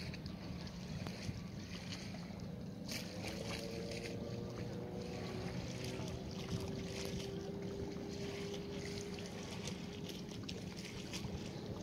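Small boat motoring across calm water: a steady low engine hum with scattered splashes of water against the hull. A faint steady tone joins in for several seconds in the middle.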